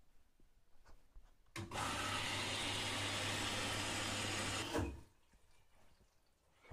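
Front-loading washing machine taking in water: a loud, steady rush of water with a low hum under it, typical of the inlet valve filling the machine at the start of a wash programme. It starts abruptly about a second and a half in and cuts off about five seconds in.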